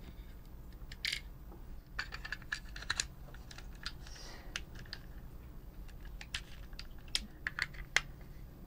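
Hard plastic parts of a TOMY FlipBot toy robot clicking and tapping as they are handled and fitted together, in an irregular run of small clicks.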